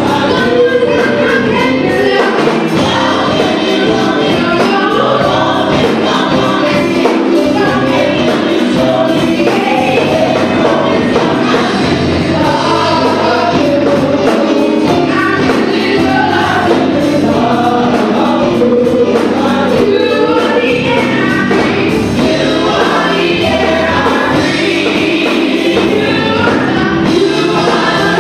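Gospel choir singing with a live band, drums keeping a steady beat, with no break.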